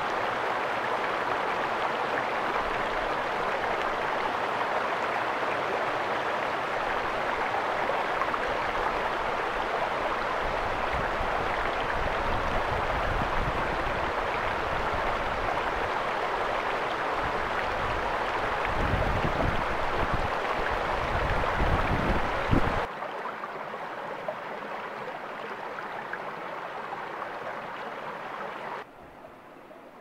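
Steady outdoor rushing noise with low rumbling gusts of wind on the microphone that build up in the second half, then an abrupt drop to a quieter hiss about two-thirds of the way through, and a further drop near the end.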